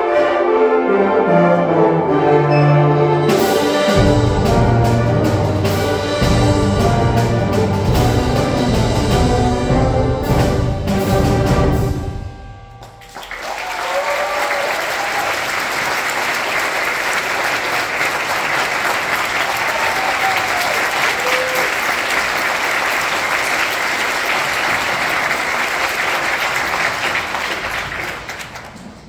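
Youth concert band playing the loud final bars of a piece, brass to the fore with deep low notes and repeated percussion strikes, cutting off about twelve seconds in. After a brief pause an audience applauds, fading near the end.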